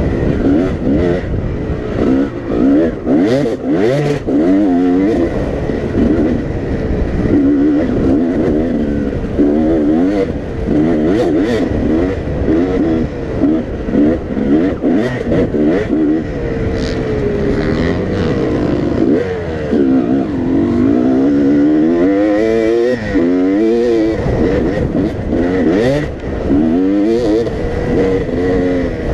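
Dirt bike engine being ridden hard on a dirt trail, revving up and dropping off again and again through the gears and throttle changes, with occasional short knocks.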